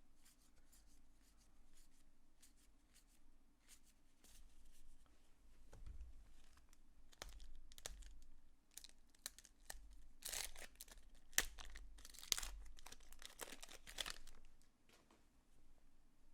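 1990 Leaf baseball card packs, with foil-like wrappers, being torn open and crinkled, along with the rustle of cards being handled. The loudest tearing comes in a cluster about ten to fourteen seconds in.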